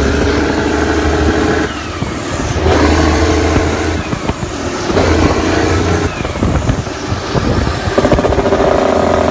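Mack RD truck's diesel engine running under load. Its steady note drops out and comes back about four times.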